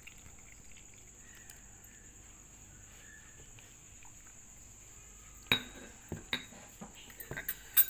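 Wooden spoon knocking and scraping against a ceramic bowl while stirring henna powder into a wet paste: one sharp knock about five and a half seconds in, then several lighter clinks and taps. Before that, only a faint steady high hiss.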